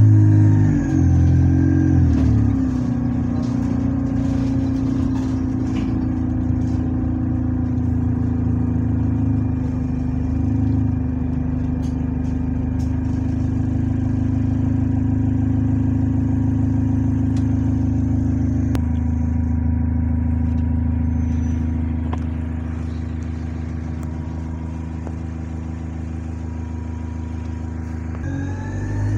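Diesel engine of an Alexander Dennis single-deck bus, heard from inside the passenger cabin as the bus drives along. The engine note shifts in pitch in the first couple of seconds, then holds steady, and changes abruptly and drops in level about two-thirds through. A faint high whistle rides over it in the middle, which the uploader puts down to a turbo leak.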